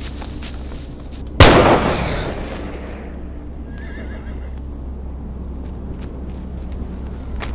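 A single loud bang about a second and a half in, ringing out and dying away over about a second, over a steady low rumble.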